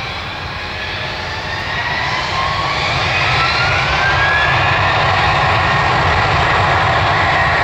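An Airbus A321 airliner's twin jet engines spooling up to takeoff thrust at the start of the takeoff roll. The whine rises in pitch and the engine noise grows louder over the first few seconds, then holds steady at full power.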